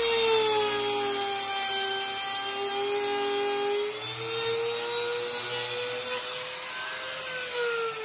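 Trim router running with its bit cutting a groove in a wooden board, the motor's pitch dipping and recovering under the cutting load; the bit is a dull one. Near the end its pitch falls as the router winds down.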